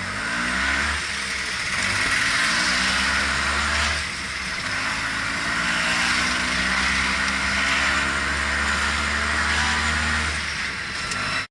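A motor vehicle's engine running and accelerating, its pitch rising in a couple of pulls and then holding steady, under loud road and wind noise.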